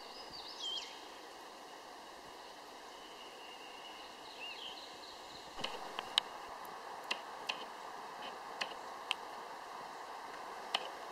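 Burning tree stump crackling: about ten sharp, irregular pops of burning wood over the second half, over a faint steady hiss.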